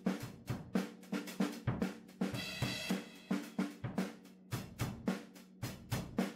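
Background music: a steady drum-kit beat of kick drum, snare and hi-hat.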